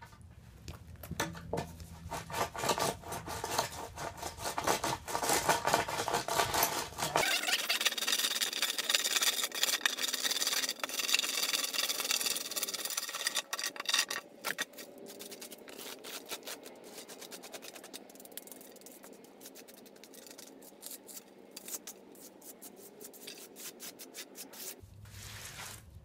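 A hand float rubbing and scraping over wet, gritty concrete in quick repeated strokes, working seeded stones into the surface for an exposed-aggregate finish. The strokes are louder in the first half and quieter after about 14 seconds in.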